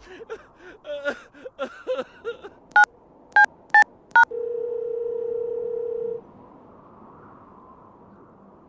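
Dubbed sound effects: a quick string of chattering, voice-like squeaks, then four loud telephone keypad beeps, then a steady phone-line tone of about two seconds that cuts off.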